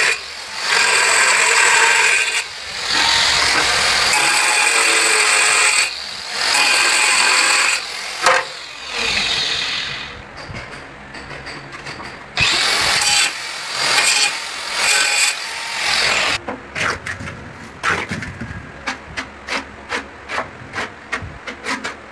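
Handheld angle grinder with a cutting disc cutting ceramic wall tile in several bursts of a few seconds each, dropping off briefly between cuts. Past the middle the cutting gives way to a run of quick light clicks and taps.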